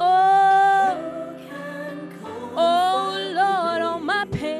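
A woman singing a gospel worship song into a microphone, holding long wordless notes with vibrato over steady sustained backing chords. One loud held note opens the stretch, and a second phrase comes in about halfway and ends in a quick downward slide.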